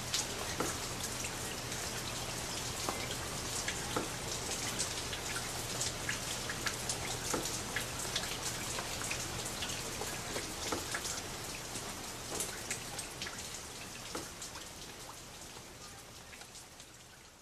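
Steady rain with a dense scatter of small drop ticks, fading out over the last few seconds.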